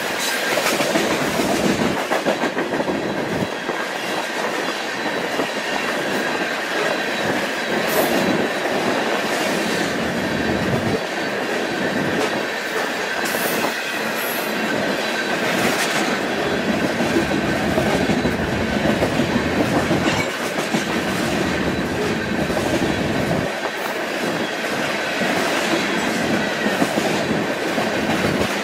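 Rock train's open-top aggregate hopper cars rolling past, their steel wheels clattering over the rail with scattered sharp clicks and a thin, steady wheel squeal.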